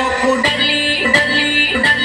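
Music with a fast, steady beat and a held melody, played loud over a sound system.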